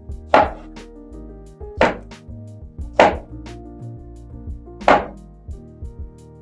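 Large kitchen knife chopping through banana onto a wooden cutting board: four sharp strikes at uneven intervals.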